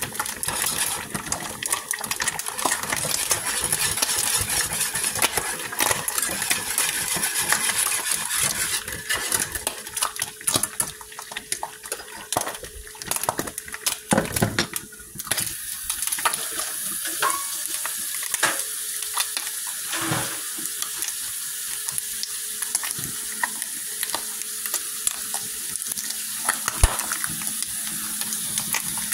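Turkey bacon frying in hot grease in a skillet: a steady sizzling crackle, with a few sharp knocks of a utensil against the pan.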